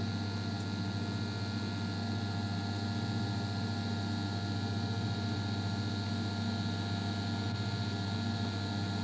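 Steady electrical hum and hiss of a TIG (gas tungsten arc) welding set running an arc at about 125 amps on thick stainless steel.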